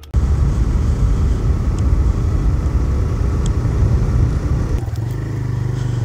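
Single-cylinder engine of a TVS Raider 125 motorcycle running as it is ridden, mixed with rough wind rumble on the bike-mounted microphone. Near the end it settles into a steadier, lower note as the bike slows.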